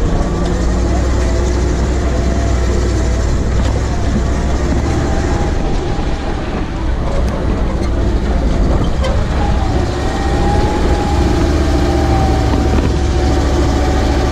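Ural truck's engine running steadily as the truck drives along, with tyre and road noise, heard from outside the cab.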